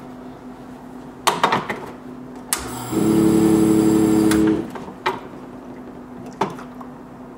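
Rancilio Epoca espresso machine's pump switched on at the brew button and run for about two seconds, a loud steady hum that starts with a click and stops abruptly. Around it, the metal portafilter knocks and clicks against the group head.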